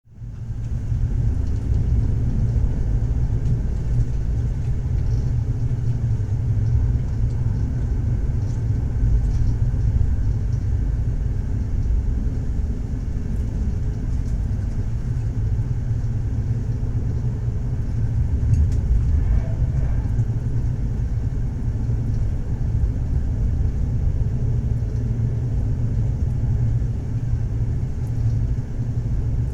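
Moving train running on its rails, a steady low rumble that fades in at the start and then holds even.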